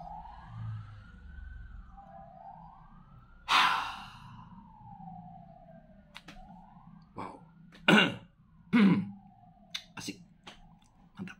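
A siren wailing, its pitch sweeping up and down again and again. Several sudden loud noises close by break in over it, one a few seconds in and two close together later on.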